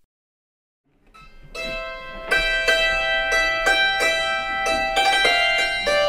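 After a second of silence, a hammered dulcimer fades in and plays a tune, its struck strings ringing on between strokes.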